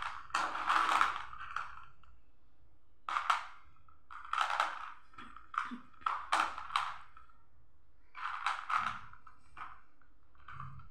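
Small plastic balls rattling and clacking against each other and a plastic tub as a hand rummages through them and picks some out, in about eight short bursts spaced a second or two apart.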